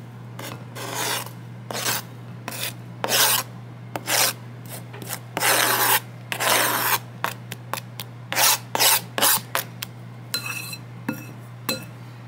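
Irregular rasping, scraping strokes of kitchen food preparation, about twenty of them, some short and some nearly a second long. A light ringing clink comes near the end.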